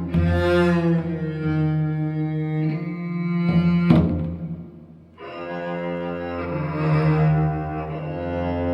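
Dae-ajaeng, the large Korean bowed zither, bowing long, low sustained notes in an ensemble piece. A single sharp drum stroke falls near four seconds in, then the sound breaks off briefly and the bowed notes start again.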